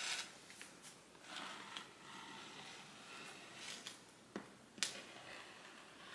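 Faint rustling of microfiber fabric as a rotary cutter works through a double layer of it on a cutting mat, with a few light clicks and one sharp click about three-quarters of the way through.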